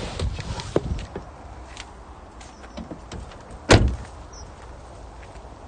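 A car door opening with clicks and knocks, then one loud slam about three and a half seconds in.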